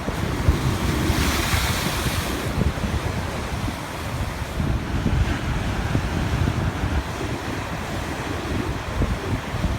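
Sea waves washing on the shore, with strong wind buffeting the microphone throughout. A wave's hissing wash swells about a second in and dies away by about two and a half seconds.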